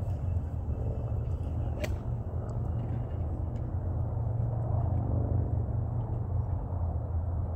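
Steady low outdoor rumble with a faint engine hum, like distant road traffic, and a single short sharp click about two seconds in.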